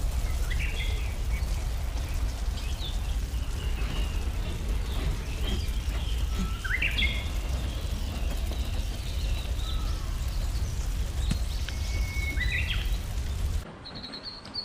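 Birds chirping and calling in short phrases over the steady rush of a river. Near the end the rushing stops and a steady high insect trill begins.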